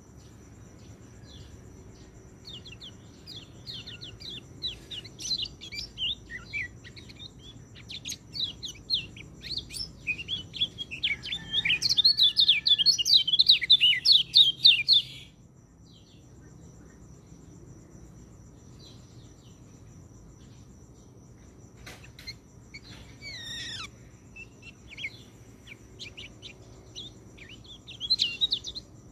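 Peleci bird singing in quick chirping phrases, with a long dense run of rapid notes about a third of the way in, then a pause and a few short phrases near the end. A steady high cricket trill runs underneath.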